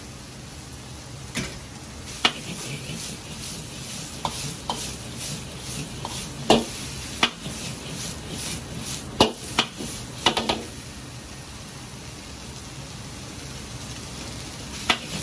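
Sliced onions stir-fried in a carbon-steel wok over a gas wok burner: a steady sizzle and burner noise, with a metal ladle knocking and scraping against the wok every second or so. The knocks come closest together in the middle and stop near the end, leaving only the steady sizzle.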